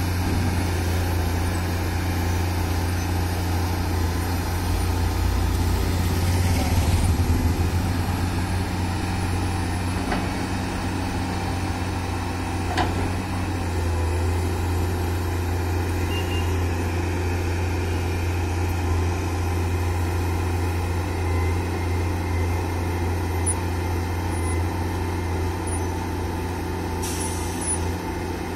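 Komatsu hydraulic excavator's diesel engine running steadily as the machine works its boom and bucket in sand, growing louder for a moment about seven seconds in. A short hiss comes near the end.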